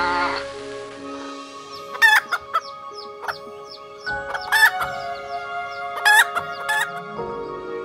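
Chickens calling: a series of short, sharp calls with quieter clucks and chirps between them, over steady background music.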